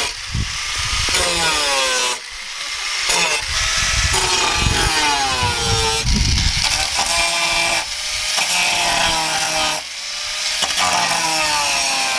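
Angle grinder cutting, its motor whine sagging in pitch as it bites into the material and recovering in short let-offs every second or two.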